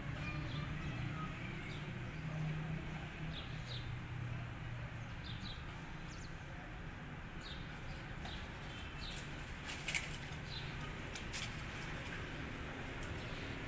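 Steady low background hum with scattered brief, high bird chirps. A few sharp clicks come about ten and eleven seconds in.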